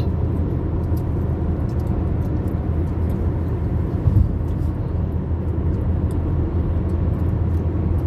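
Steady low rumble of road and engine noise inside a car cruising on a motorway, with a brief louder bump about four seconds in.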